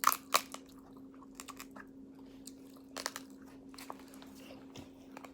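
King crab leg shell cracking and splitting as it is broken open for the meat: a loud crackle of sharp snaps at the start, then scattered smaller cracks about a second and a half in and again around three seconds.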